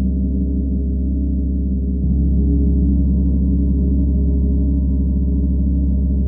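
Paiste symphonic gong sounding continuously, a deep, dense wash of many overlapping low tones that swells slightly about two seconds in.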